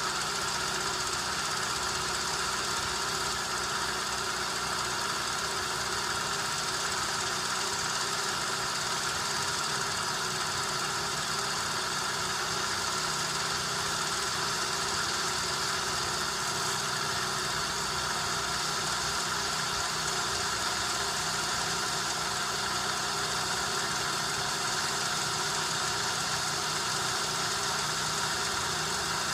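VCR fast-forwarding a videotape: a steady mechanical whir and hum from the deck's reel motor and the fast-winding tape, with a fine rapid flutter underneath.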